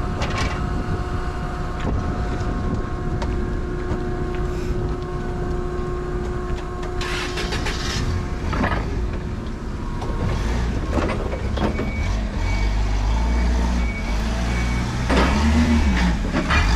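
Steady drone of dock machinery with a few held tones. In the second half, a forklift's engine runs close by, with a faint intermittent beeping and a short rev near the end.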